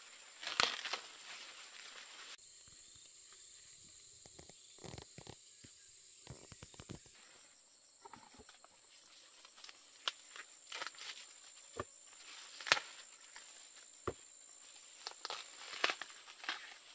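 Corn stalks and leaves rustling as ears of corn are picked by hand, with scattered sharp snaps and cracks as the ears break off the stalks.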